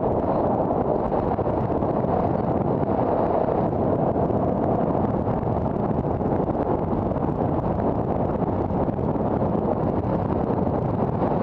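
Steady road and engine noise inside a moving car, an even low rumble that holds without a break.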